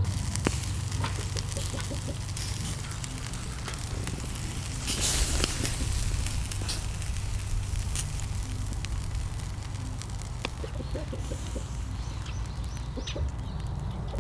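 Pork intestine pieces sizzling and crackling on a wire grill basket over charcoal, with light clicks of metal tongs and the wire basket being handled; the sizzling swells briefly about five seconds in.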